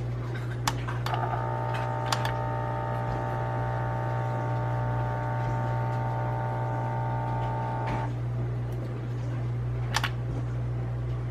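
A few sharp clicks of an Oster coffee grinder's power button being pressed, over a steady low hum; the grinder fails to start. A steady whine with several pitches sounds from about a second in until about eight seconds in.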